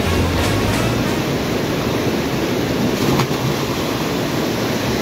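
Rushing river water, with a splash about three seconds in as a person drops into the river from the rock above.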